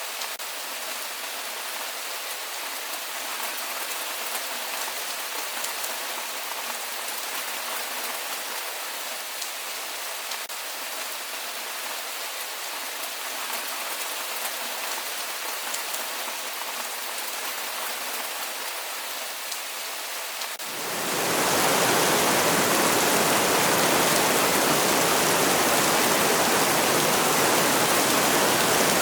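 Steady rain with fine pattering drops. About two-thirds of the way through it cuts abruptly to a louder, deeper, even rush of heavy rain or water.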